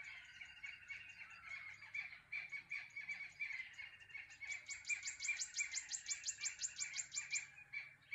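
Dawn chorus of many birds calling together over a steady high trilling. About halfway in, a rapid run of sharp chirps, about seven a second, goes on for about three seconds.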